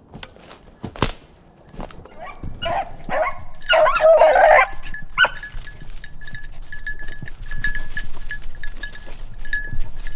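A sharp snap about a second in. Then a beagle bays on a rabbit's trail for a couple of seconds, and a collar bell jingles in quick, uneven strokes as the dog runs in through dry leaves.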